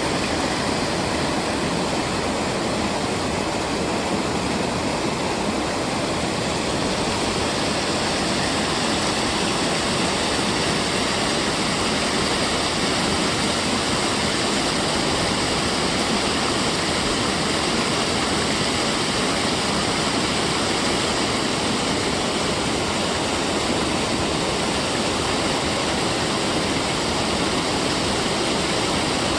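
Water pouring over a low concrete weir and churning in the pool below, a steady rush with no breaks.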